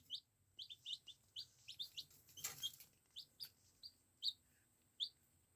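Baby chicks (Lemon Cuckoo Niederrheiner crosses and a Silver Gray Dorking) peeping, with short high cheeps coming two or three a second. A brief rustle about two and a half seconds in.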